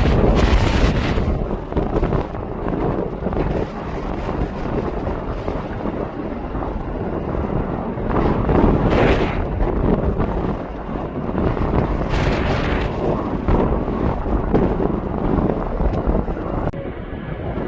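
Gusty wind buffeting the microphone: a dense rumble that swells in gusts about halfway through and again a few seconds later.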